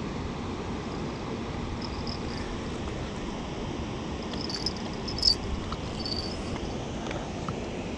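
Steady rush of river water running over rocks, with a few short high chirps and a brief click about five seconds in.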